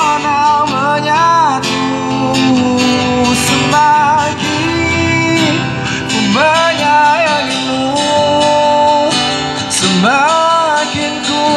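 Acoustic guitar strummed under a sliding, wavering melody line sung into a microphone and played through a loudspeaker.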